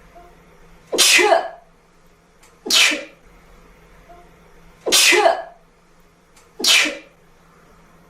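A woman sneezing four times in a row, about two seconds apart, each sneeze loud and short.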